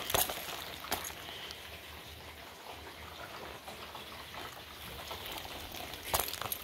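Footsteps on concrete, a few taps and scuffs at the start and a cluster near the end, over a steady outdoor hiss.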